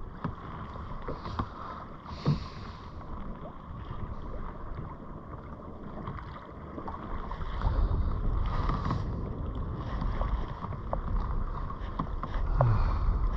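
Water lapping and slapping against a kayak hull, with wind buffeting the microphone, heavier in the second half, and a few scattered light ticks.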